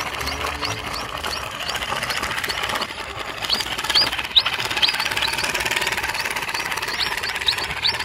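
Steady, rapid mechanical rattle of a toy dump truck moving over dirt, dipping briefly about three seconds in. Short high bird chirps are scattered through.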